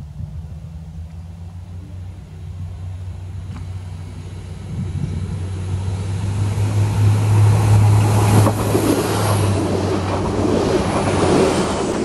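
Pesa ATR220 diesel railcar approaching and passing close by. Its steady low engine hum grows louder, with wheel and rail noise building over it and a few sharp knocks as it draws level near the end.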